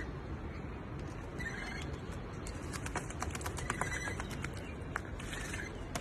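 Parrots giving a couple of short calls, with scattered sharp clicks over a steady low rushing noise.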